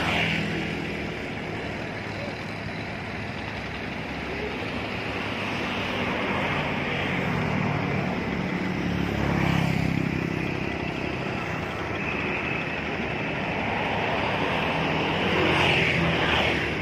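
Road traffic on a bridge: a steady engine rumble, with vehicles swelling past close by three times, near the start, about halfway and near the end.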